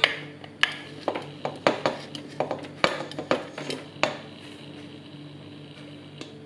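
Quick sharp clinks and knocks of a container tapping and scraping against a stainless steel stand-mixer bowl as thick cream is poured and shaken out into it. They stop about four seconds in, leaving a faint steady hum.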